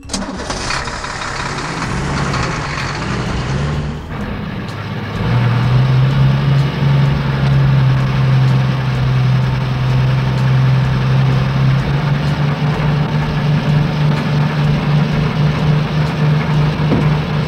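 Heavy-vehicle engine sound effect: engine noise that settles at about five seconds into a steady low hum, which takes on a light regular pulsing in the second half, as of a truck or trencher idling.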